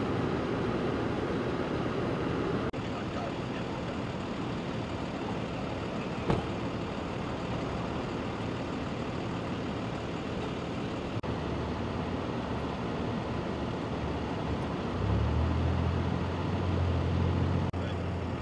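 Steady low hum of idling truck engines with even background noise. A louder, deeper engine drone comes in about fifteen seconds in, and there is one sharp click about six seconds in.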